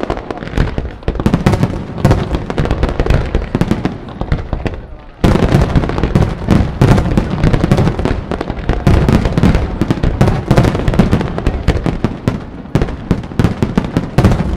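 Fireworks display: a dense, rapid volley of bursting shells and crackling reports, many bangs a second. About five seconds in it jumps suddenly to an even louder, thicker barrage.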